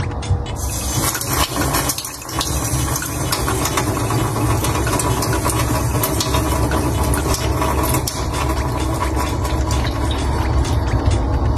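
Kitchen tap running, water splashing and drumming steadily into a stainless steel sink.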